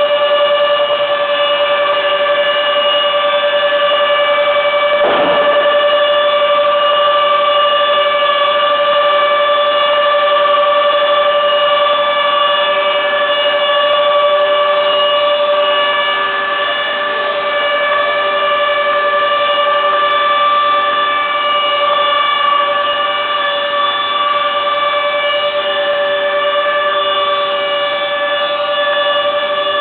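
Steady, loud machine whine at one constant pitch from the plank-gluing and hydraulic press machinery, with a brief rushing noise about five seconds in.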